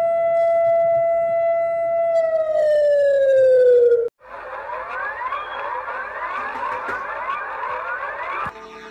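Synthesized emergency-alert siren tone of a fictional EAS alarm. A steady tone holds for about two seconds, then slides down in pitch and cuts off suddenly. After a short gap, a dense, harsh wash of many quick rising sweeps takes over, and near the end it gives way to a quieter, different tone.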